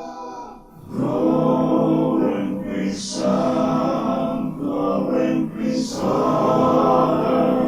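Background music with a singing voice over sustained notes; it dips briefly and comes back in about a second in.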